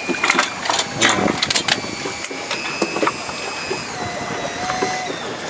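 Running noise of a small fishing boat under way on choppy sea: a steady rushing with scattered sharp knocks and clicks and a faint steady whine.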